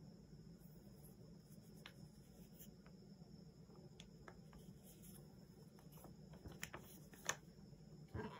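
Faint crinkling and ticking of thin plastic protective film being peeled off a smartphone, with a few sharper crackles near the end.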